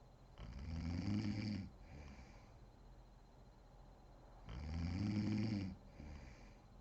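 A woman snoring in deep sleep: two loud snores about four seconds apart, each followed by a shorter, softer breath.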